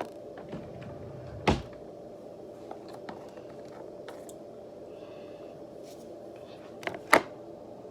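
A steady hum with a few faint clicks and two sharp knocks, one about a second and a half in and a louder double knock near the end.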